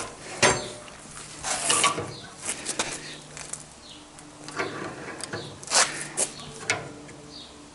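Scattered metal clicks and clanks of a 10 mm steel rod and an adjustable spanner being worked in a bench vise as the rod is levered into a bend.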